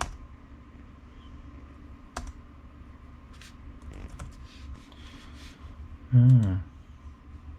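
Laptop keys clicked now and then, with a sharp click at the start and another about two seconds in, over the faint steady hum of the laptop's freshly greased cooling fans.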